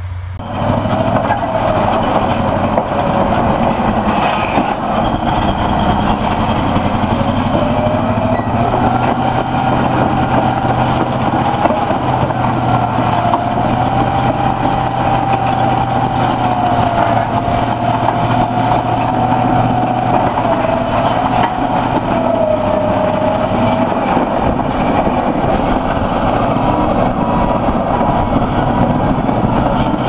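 Caterpillar D11R crawler dozer's V8 diesel engine running under load while pushing, a steady low drone with a high whine that wanders up and down in pitch and fades out a few seconds before the end.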